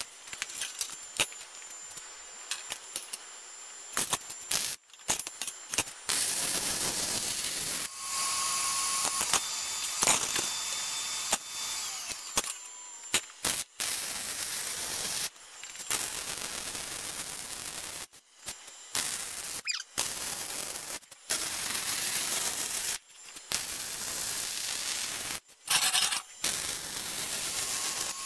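Electric arc welding: the arc crackling in several runs of one to a few seconds each, starting and stopping abruptly with short pauses between beads.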